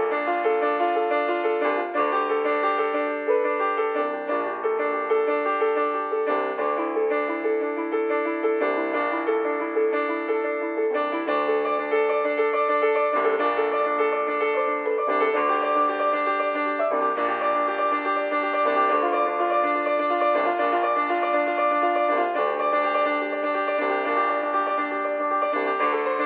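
Computer playback of a solo piano composition: full chords over a moving bass line, changing about once a second at an even pace.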